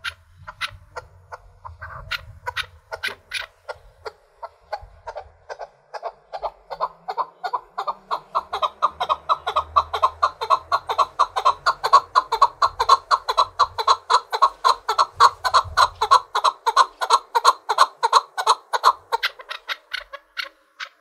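Chukar partridge giving its rally call: a long run of rapid, evenly repeated "chuck" notes, several a second, starting softly, swelling to loud over the first several seconds and holding there, then stopping shortly before the end.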